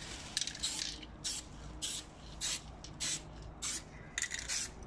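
Aerosol spray-paint can hissing in short bursts, about nine in a row at roughly two a second, for a light first coat of paint on a brake drum.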